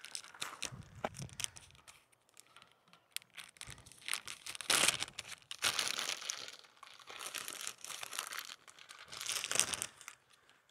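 Clear plastic parts bag crinkling in gloved hands as it is handled and opened to get at a hydraulic fitting, on and off, loudest about halfway through and again near the end.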